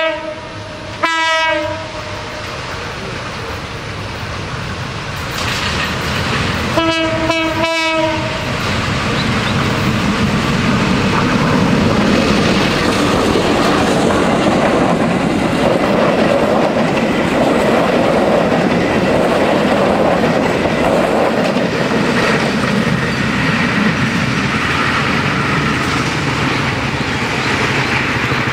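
Diesel train's locomotive horn sounding at the start and again about a second in, then three short blasts about seven seconds in. After that comes the loud, steady rumble of the passenger train passing close by, its wheels clattering on the rails.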